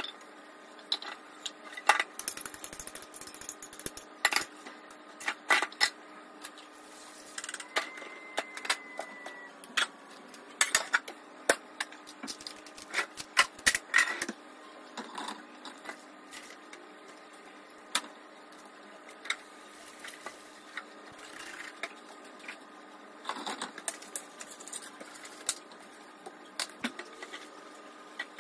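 Dishes and plastic cups knocking and clattering against each other and the counter as they are washed up, in many irregular sharp clacks, over a faint steady hum.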